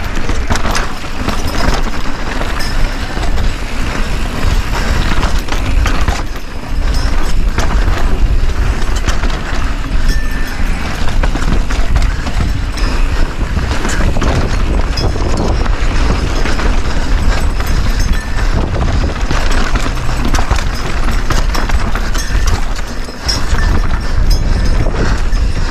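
Mountain bike ridden fast downhill over rocky trail, with a steady low wind rush on the camera microphone. Over it come frequent rattles and knocks from the tyres and frame striking rock.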